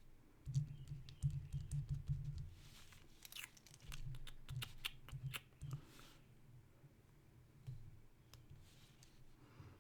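Typing and clicking on a computer keyboard and mouse, a cluster of quick sharp clicks in the middle, over low bumps and handling noise in the first couple of seconds.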